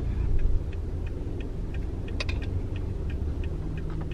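Car engine rumble heard from inside the cabin, with a regular light ticking about three times a second and one slightly louder click about halfway through.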